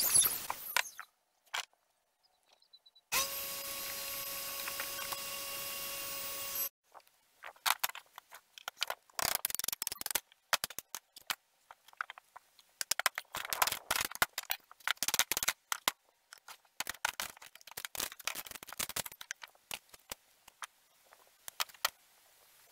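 A circular saw cut ending in the first second, then a steady hum for a few seconds that starts and stops abruptly. After that come many irregular knocks, taps and clatter of old wooden boards being handled and struck with a hammer.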